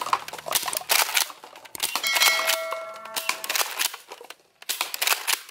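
Nerf Mega Cycloneshock dart blaster firing again and again, with sharp snaps and clicks, as plastic cups are hit and clatter down. A short ringing ding comes about two seconds in.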